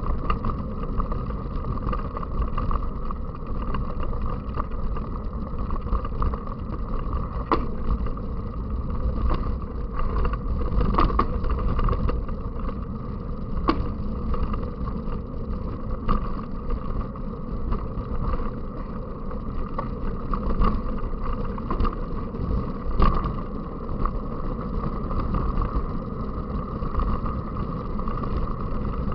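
Continuous rumble and wind noise of riding a bicycle on a trail or road, with a steady hum and a few sharp knocks or clicks from the bike along the way.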